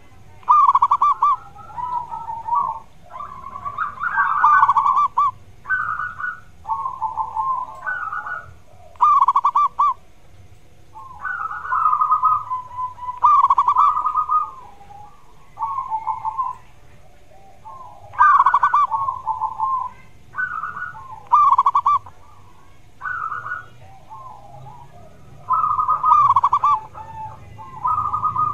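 Zebra dove (perkutut) cooing: short trilling coo phrases of about a second each, repeated one after another with brief pauses.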